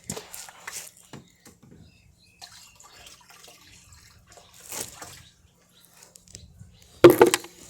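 Water splashing and dripping from a leaking dishwasher, with scattered small clicks and a louder burst near the end.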